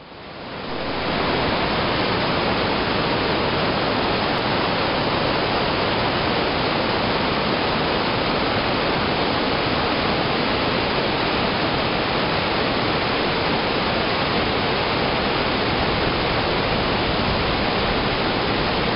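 Bhagirathi river in spate rushing over boulders: a loud, steady roar of turbulent water that fades in over the first second and then holds unchanged.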